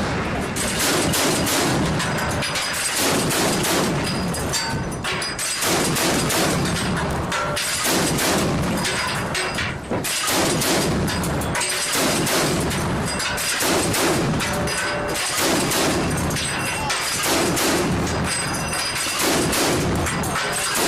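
Mk 38 naval gun mount's 25 mm M242 Bushmaster chain gun firing repeated bursts of shots with short breaks between them.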